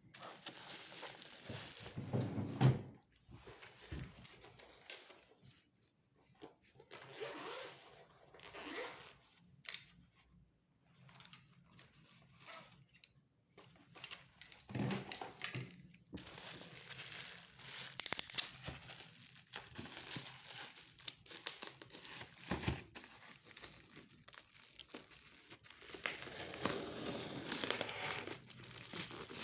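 Packaging of a boxed model airliner being unwrapped by hand: crinkling and tearing in uneven bursts, with a few light knocks. The rustling pauses now and then and turns more continuous in the second half.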